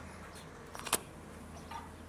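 A few faint clicks and one sharp click about a second in, over a steady low hum.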